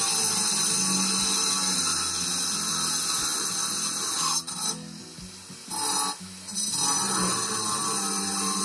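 Handheld angle grinder with a 105 mm multi-purpose diamond cutting wheel cutting into steel plate, a steady high-pitched grinding. The cutting sound drops away twice, for about a second each time, around the middle.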